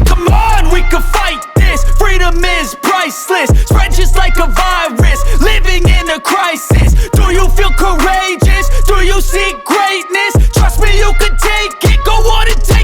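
Hip hop music with a heavy, booming bass line that drops in and out on the beat, under a vocal line or lead melody.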